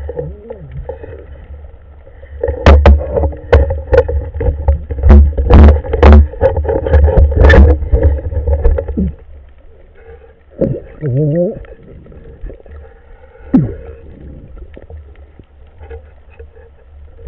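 Underwater sound picked up inside a diver's camera housing: a low rumble with a dense run of sharp knocks and clicks as the speargun and speared fish are handled, then quieter with a short wavering sound about eleven seconds in.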